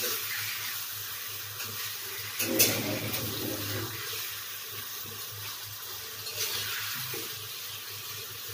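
Hilsa fish-head pieces sizzling steadily in a wet spiced masala in a metal karai while a metal spoon stirs them, with a sharp clink of the spoon against the pan about two and a half seconds in.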